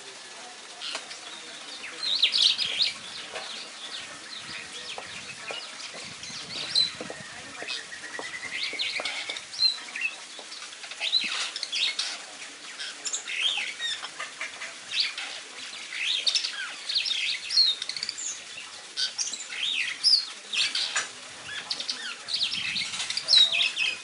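Superb starling singing: a long, rambling run of chirps, squeaky whistles and chatter, with one drawn-out rising whistle about eight seconds in.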